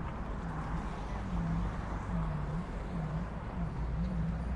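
Street ambience beside a city road: steady traffic rumble with a general background murmur, and a low hum that dips and rises in pitch about once a second.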